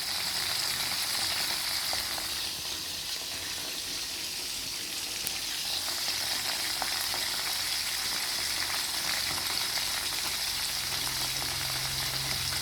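Eels frying in hot oil: a steady sizzle with scattered small crackles and pops.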